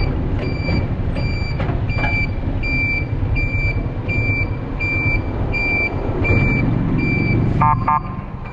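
A vehicle's reversing alarm beeping: one high beep repeating evenly a little under twice a second, over the rumble of a running engine.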